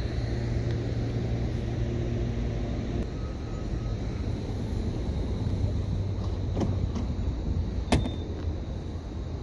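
CPTM Series 2100 electric train standing at the platform, humming steadily; a pair of higher held tones drops out about three seconds in. A sharp metallic click rings out near the end.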